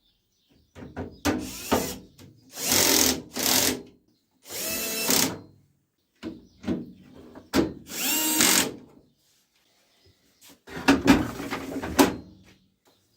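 Electric screwdriver or drill driving screws during reassembly of a clothes dryer, in short whining runs of about a second each, around seven times with pauses in between.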